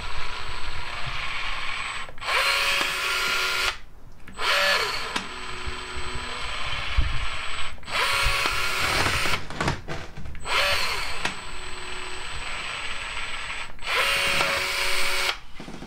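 Battery-powered Milwaukee caulk gun motor whirring in about five runs of a few seconds each, with short pauses between them, as it drives the plunger and pushes sealant out of the cartridge.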